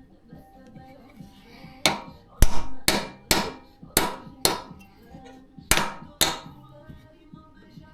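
A hammer striking metal about eight times, in quick pairs, each blow ringing briefly.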